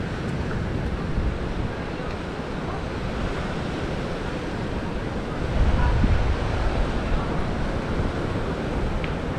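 Sea surf washing on the shore mixed with wind blowing on the microphone, a steady rushing that swells louder a little past halfway.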